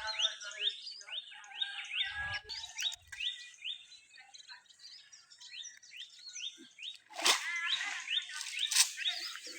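A bird calling over and over in short, upward-sliding chirps, about two a second. A louder, harsher sound joins about seven seconds in.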